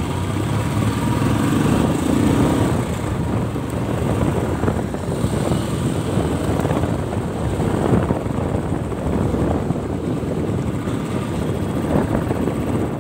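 Motorcycle engine running steadily on the move, mixed with wind rushing over the microphone.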